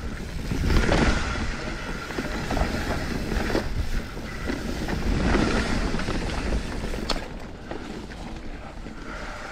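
Mountain bike riding down a dirt trail: tyres rumbling over the ground, with repeated knocks and rattles from the bike and wind buffeting the camera microphone.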